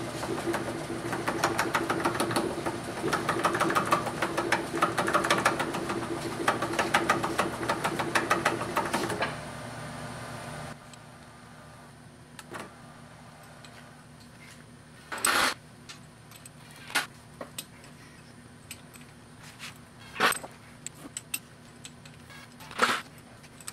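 Metal lathe running as a threading die held at the tailstock cuts threads on 1018 cold-rolled round stock, with a steady hum and rapid clicking; the lathe lacks the low-end gearing to turn the die well. About nine seconds in the lathe stops and winds down, and a few sharp metal clicks and knocks follow as the chuck is worked by hand.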